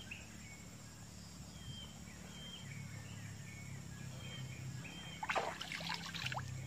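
Quiet outdoor ambience with faint short high chirps and a low steady hum, then about five seconds in a brief burst of splashing as a snakehead fish is pulled out of the shallow water on a set line.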